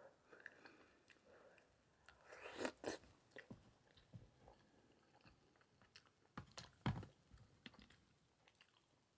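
Close-miked chewing and mouth sounds of someone eating, with scattered short smacks and clicks and two louder bites about two and a half and seven seconds in.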